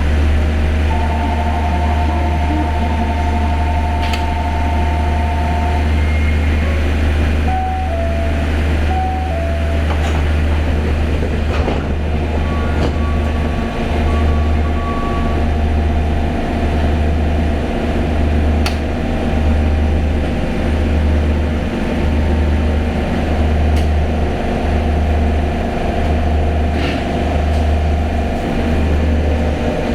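Inside an Osaka Monorail car: a steady low hum from the train's equipment, with electronic chime tones over the first ten seconds, two held notes and then a few short stepped notes. From about 13 s the hum throbs regularly, a little under once a second.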